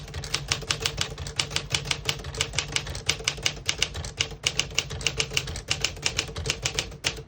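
A 1955 Smith-Corona Silent-Super manual portable typewriter being typed on at a steady pace, its typebars striking the platen about six or seven times a second. A faint steady low hum sits underneath, and the typing stops abruptly near the end.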